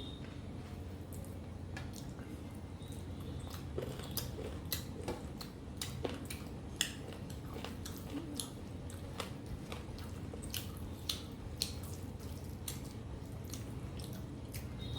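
Close-up chewing of mutton curry and rice: wet, squelchy mouth clicks and smacks at an irregular pace, over a steady low hum.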